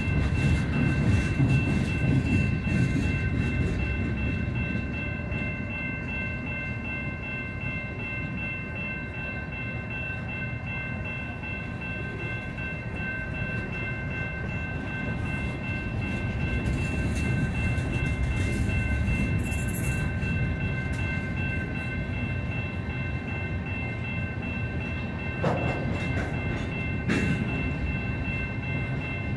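Freight train cars rolling past: a steady rumble of wheels on rail that swells and eases, with a thin, steady high-pitched whine over it and two sharp clanks near the end.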